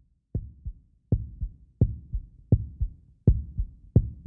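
A heartbeat sound effect: paired low thumps, a strong beat followed by a softer one, repeating steadily about every three quarters of a second.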